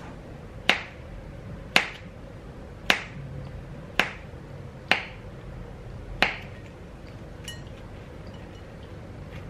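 Kitchen knife slicing a small cucumber on a plastic cutting board: six sharp clicks about a second apart, each as the blade strikes the board.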